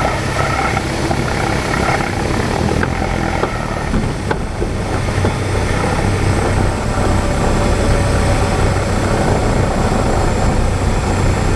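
Cessna 172's engine and propeller running at low power, heard from inside the cabin: a steady low drone with a hiss of air and rolling noise over it as the plane rolls along the runway.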